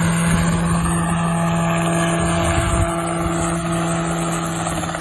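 Small single-seat open-frame helicopter hovering low, its engine and rotor running with a steady, even hum. Wind rumbles on the microphone for the first three seconds or so, then eases.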